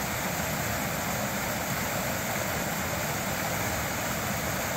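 Mountain stream rushing over rocks and spilling down small cascades, a steady, even rush of water.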